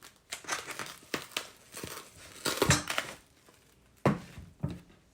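Crinkling and rustling as raw beef and its wrapping are handled for cutting. A few sharp knocks land on the counter, the loudest about halfway through and again near the end.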